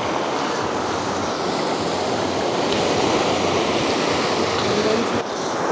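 Sea surf washing over a rocky shoreline: a steady rushing wash of water that builds slowly.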